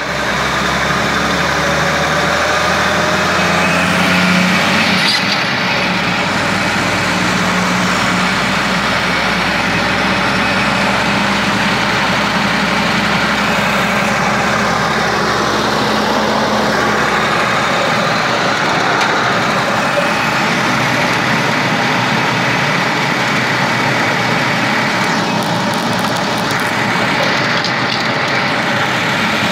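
Toyota Land Cruiser HJ45's newly fitted engine running steadily under way after a shift into third gear, heard from inside the cab over road noise.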